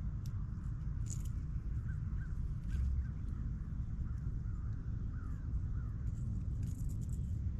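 Crows cawing in the distance, a string of short calls, over a steady low rumble.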